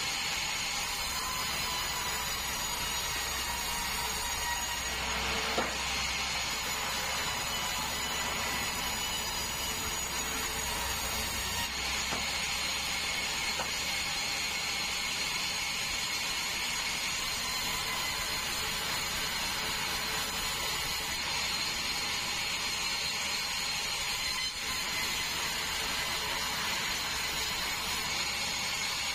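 Sawmill band saw running steadily through a large meranti log, a continuous machine noise with a steady high whine over it. A low hum under it drops away about twelve seconds in.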